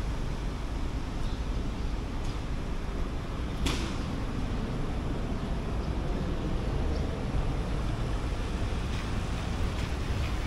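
City street ambience: a steady rumble and hiss of traffic, with one sharp click or knock a little under four seconds in and a few faint ticks.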